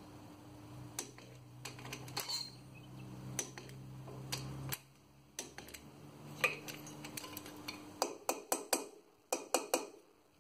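Metal-on-metal clinks and ticks of hand tools working on a Land Rover Series 2a stub axle: a socket wrench on the stub-axle bolts as they are torqued up. About eight seconds in comes a quick run of sharp metallic taps as a screwdriver bends the lock tabs over the bolt heads.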